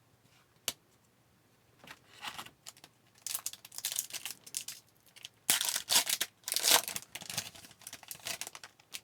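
A trading-card pack wrapper being torn open and crinkled by hand: a click, then a series of ripping and crinkling bursts, loudest in the middle of the stretch.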